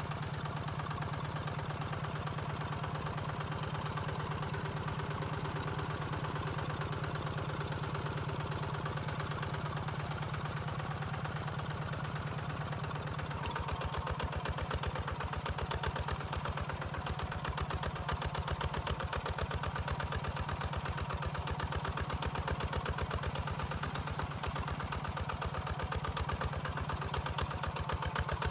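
Two-wheel walking tractor's single-cylinder diesel engine running with a fast, even chug while pulling a plough through dry field soil. It gets louder and more strongly pulsed about halfway through as the plough works.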